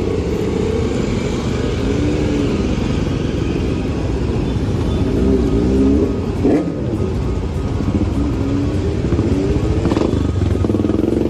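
A procession of motorcycles, among them a Royal Enfield Himalayan, riding slowly past in a line. Their engines run at low speed, and the pitch rises and falls as each bike goes by. There is a brief sharp blip about six and a half seconds in.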